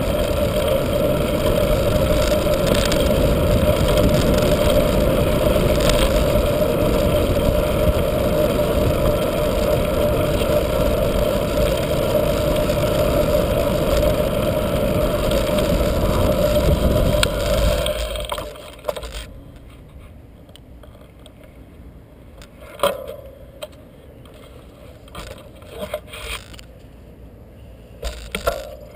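Wind rushing over a bike-mounted or helmet camera mixed with mountain-bike tyres humming on asphalt during a fast descent. A little over halfway through, the noise drops off sharply as the bike slows, leaving quieter rolling with scattered clicks and rattles from the bike.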